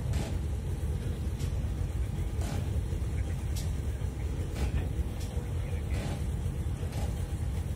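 Low, steady rumble of a 35 m Carp Navi motor yacht's engines running slowly while it manoeuvres stern-to onto the quay, with faint clicks every second or so.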